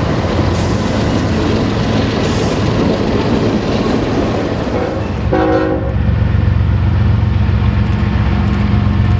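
Loud, even rushing noise of a heavy vehicle, then a little past halfway one short blast of a multi-tone horn, after which a steady low engine drone carries on.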